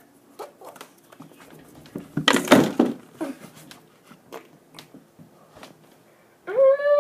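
Scattered small clicks and taps of toys being handled, with one loud, short crash-like noise about two and a half seconds in; near the end a child starts singing a held note.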